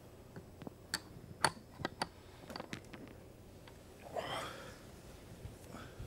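Several sharp little clicks over the first three seconds as hands pick at skin, then a short breath about four seconds in.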